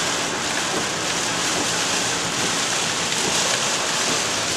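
Heavy thunderstorm rain pouring down, a steady, dense hiss.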